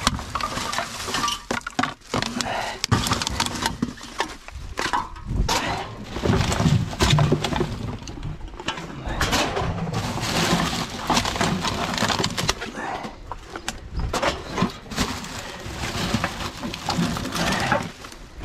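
Gloved hands rummaging through rubbish: plastic bags and packaging crinkling and rustling, with cans and plastic bottles clinking and knocking together in an irregular, unbroken clatter.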